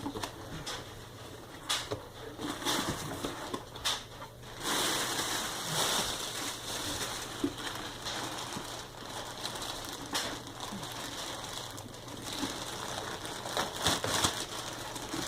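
A cardboard shipping box and its packaging being opened by hand: irregular rustling, crinkling and crushing, with scattered small clicks and knocks.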